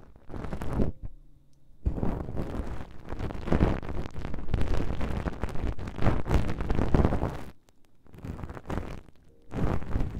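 Feather-tipped ear pick rubbed and scratched against a binaural microphone's ear, very close: loud, dense scratchy rustling in uneven strokes, pausing about a second in and again near the end.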